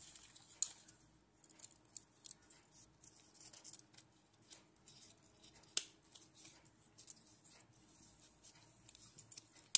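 Small hand stapler clicking shut on cut egg-carton pieces to staple a paper-pulp flower together, with light rustling and small clicks as the pieces are handled; one sharp snap about six seconds in and another near the end.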